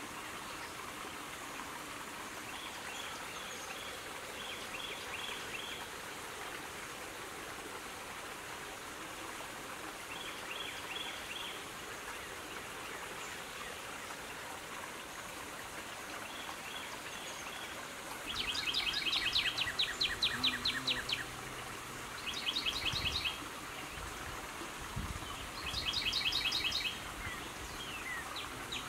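Songbirds singing over a steady outdoor hiss. Soft short runs of chirps come in the first half, then several loud rapid trills, each a second or two long.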